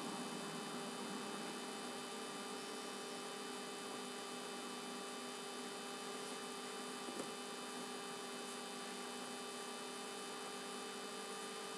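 Steady electrical hum made of several steady tones over a low hiss. A faint tap comes about seven seconds in.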